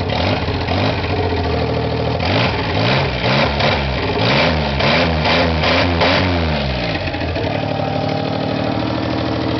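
Vehicle engine, freshly brought back to running, idling and then blipped several times in quick succession about two seconds in: the pitch rises and falls with each rev before settling back to a steady idle.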